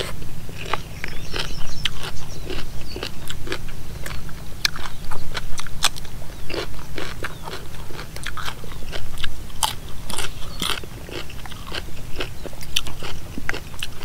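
A person chewing a mouthful of spicy pounded salad with chicken feet, mixed seafood and rice noodles close to the microphone: many short wet crunches and clicks, irregular throughout.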